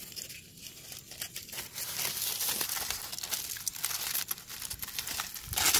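Crumpled aluminium foil crinkling as hands pull a foil packet open, a dense crackle that gets louder about two seconds in.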